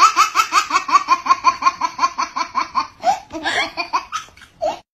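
High-pitched, child-like laughter: a fast run of 'ha-ha' pulses, about five a second. It slows and breaks up about three seconds in, then gives a few last gasps and cuts off suddenly near the end.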